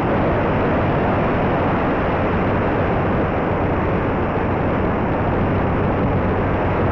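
Steady rushing noise of a Wing Wing Z-84 FPV flying wing in low, fast flight: its Multistar Elite 2204 brushless motor and 6x3 prop running, mixed with airflow noise on the onboard audio.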